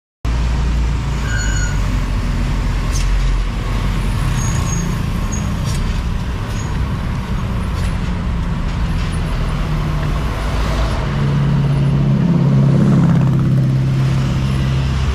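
Road traffic dominated by heavy diesel truck engines, a steady low drone that swells near the end, with a few sharp clicks along the way.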